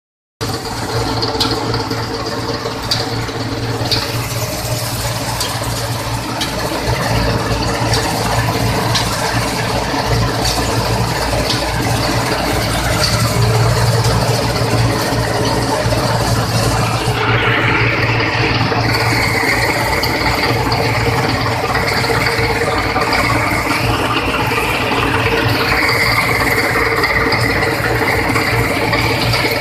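Dasmesh combine harvester running, its engine and machinery rattling steadily. A higher whine joins in about 17 seconds in.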